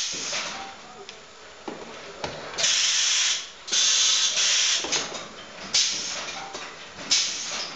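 Hanging walking robot's pneumatic leg actuators venting compressed air in four loud hissing bursts, the longest about a second, as its valves switch. Short clicks and knocks of the mechanism come between the bursts.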